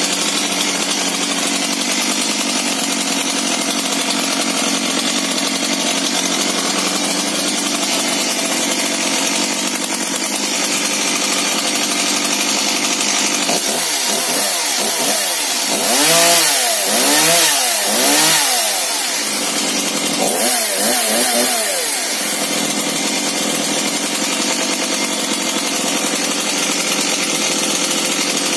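Brand-new Stihl MS 170 two-stroke chainsaw running at idle on its first start. About halfway through it is revved in a quick run of throttle blips, four or five rises and falls, then two smaller ones, before dropping back to a steady idle.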